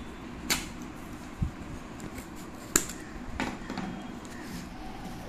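Scissors snipping through packing tape on a cardboard box, with a few sharp clicks, the sharpest about three seconds in, and one dull knock about a second and a half in as the box is handled.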